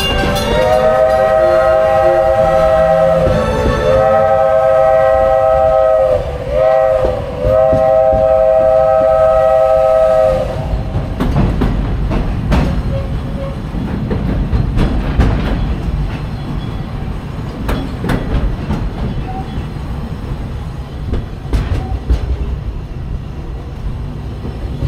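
Steam locomotive whistle on a vintage narrow-gauge train, several notes sounding together, blown in the long-long-short-long pattern of the railroad crossing signal. After that the train rolls on, with steady wheel rumble and the clickety-clack of wheels over rail joints heard from an open passenger car.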